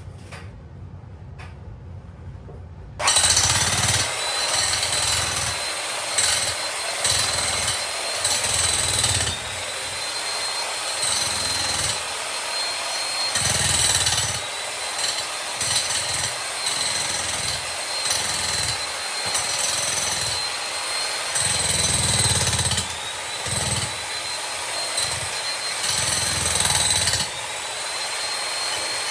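Makita HM1810 electric jackhammer breaking up a concrete floor slab. It starts suddenly about three seconds in and keeps hammering, its loudness rising and falling as it works.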